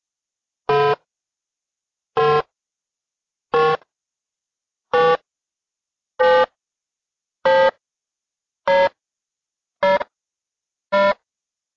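Timer-bomb countdown beep sound effect: nine short buzzy electronic beeps, coming a little faster and rising slightly in pitch toward the end.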